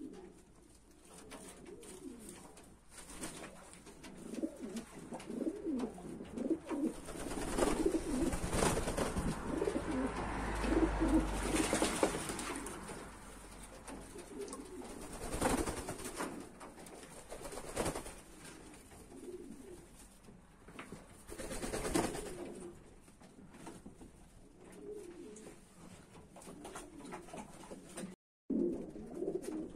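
A flock of domestic pigeons cooing continuously, with several short, louder noises of wings flapping among them.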